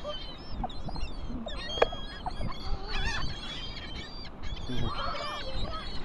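A flock of laughing gulls calling, many short cries overlapping one another throughout.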